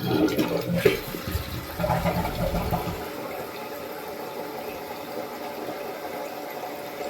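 Toto toilet flushing: a loud rush of water for about three seconds, with a sharp click about a second in, settling into a steady hiss as the tank refills.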